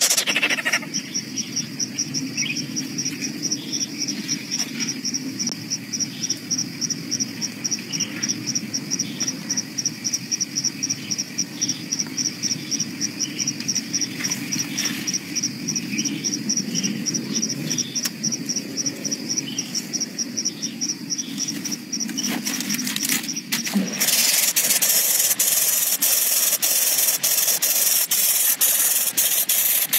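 An insect, cricket-like, chirps in a fast, even, high-pitched pulse over a low steady rumble of noise. About 23 seconds in, the sound cuts abruptly to a brighter, even hiss.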